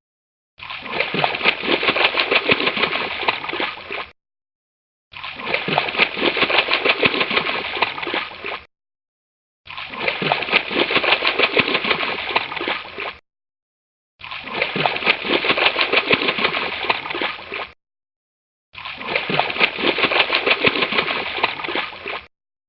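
Water gurgling and splashing in a fast, irregular churn, played five times over in takes of about three and a half seconds, each followed by a short silence.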